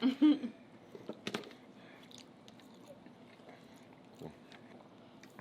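Close-up eating sounds: chewing and biting into soft food, with a few sharp clicks about a second in and a soft thump near the end.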